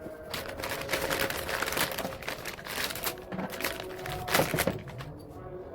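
Rapid, irregular clicking and clattering, like small hard objects being handled or rattled, loudest about four and a half seconds in.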